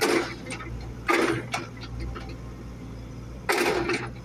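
A steady low machine hum with three short clattering knocks, one at the start, one about a second in and one near the end.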